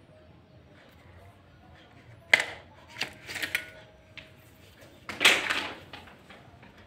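Celurit blade drawn from its leather sheath: a sharp click about two seconds in, then short scraping rustles of steel against leather, and a louder half-second scrape about five seconds in.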